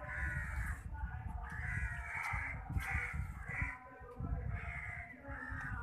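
Crows cawing, a series of short calls one after another, over a low rumble on the microphone.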